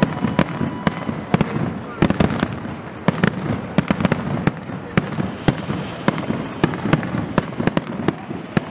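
Aerial firework shells bursting in quick, irregular succession: sharp bangs and crackles several times a second.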